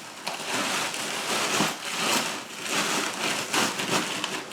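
Plastic vacuum storage bag rustling and crinkling in uneven swells as clothes are pushed into it.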